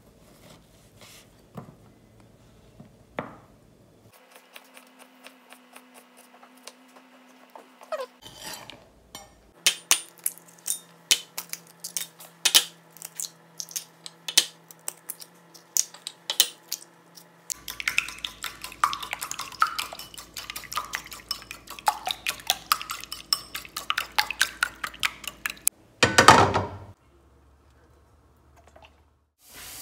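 Kitchen preparation sounds: a knife tapping on a wooden cutting board and utensils clinking against ceramic bowls, in many sharp taps and clatters. There is one louder rush of noise near the end.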